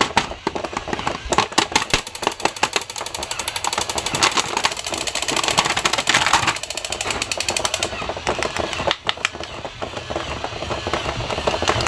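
Thin plastic packaging crinkling and crackling as a battery-operated toy soldier is unwrapped from its blister pack, over a rapid mechanical rattling clatter.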